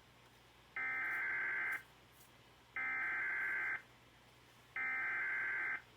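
Weatheradio Canada's EAS/SAME digital alert header: three identical buzzing data bursts, each about a second long, with a second of silence between them. They mark the start of a weather alert broadcast.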